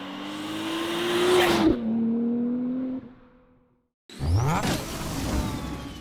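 2023+ Nissan Z's twin-turbo V6 through a muffler-less titanium exhaust, running loud and raw. The engine note climbs and grows louder, then its pitch drops sharply as the car passes by. After a short gap, a second burst of hard acceleration starts suddenly, its pitch rising quickly before fading near the end.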